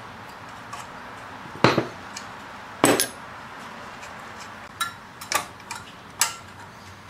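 A wrench and loose bolt hardware clinking against metal as a bolt is undone from the rectifier's mounting plate inside a MIG welder. About half a dozen short, sharp metal clicks come at uneven intervals.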